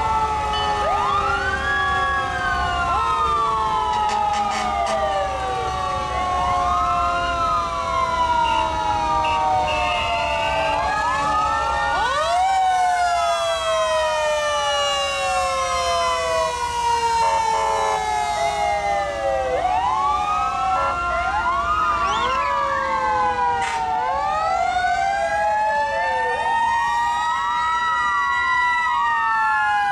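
Several fire-truck sirens wailing at once as the trucks pass, overlapping at different pitches. Each siren rises quickly and then falls away slowly over several seconds, over and over.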